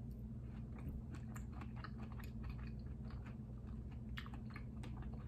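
A person chewing a bite of syrup-dipped strawberry, with many small, irregular mouth clicks.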